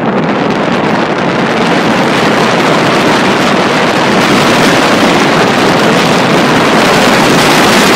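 Heavy wind buffeting the handlebar-mounted camera's microphone as the electric bike accelerates past 30 mph. It is a loud, even rush that grows a little louder in the first couple of seconds and then holds steady.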